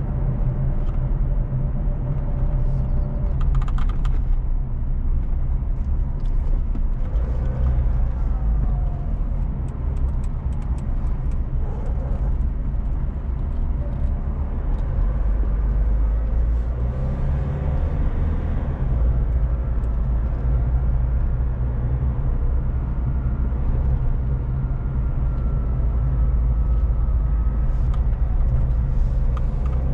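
Car driving along a highway: a steady low rumble of engine and road noise, with a few faint clicks.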